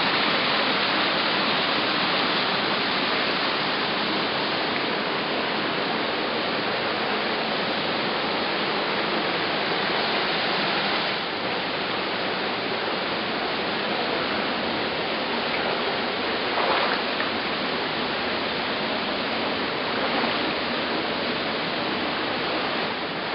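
Shallow stream water rushing and splashing over boulders and small cascades, a steady rush that drops slightly about halfway through.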